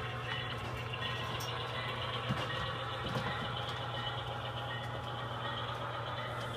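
HO-scale model diesel locomotive idling: a steady low drone. Faint clicks come about two and three seconds in.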